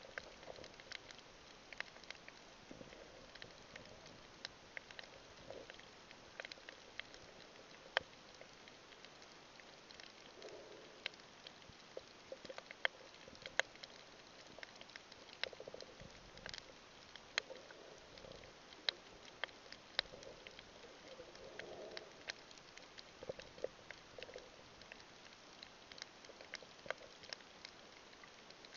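Underwater reef crackle recorded through the camera: irregular sharp clicks and snaps, several a second, typical of snapping shrimp on a coral reef, with a few soft low sounds between them.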